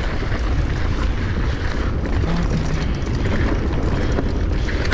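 Mountain bike descending a loose dirt trail at speed: a steady, dense rumble of wind buffeting the microphone and the tyres rolling over the dirt, with frequent rattling clicks from the bike.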